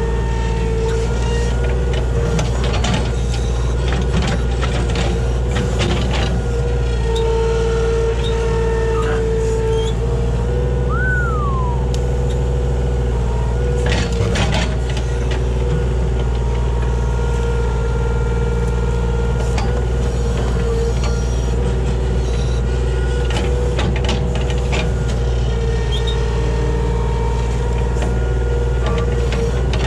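Kubota KH-60 mini excavator's diesel engine running steadily under digging load with a steady whine, and now and then clanks and scrapes of the bucket working the dirt around a stump.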